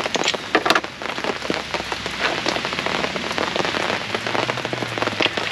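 Hard, steady rain falling on a fabric canopy overhead, with individual drops ticking sharply on it, one especially sharp hit near the start.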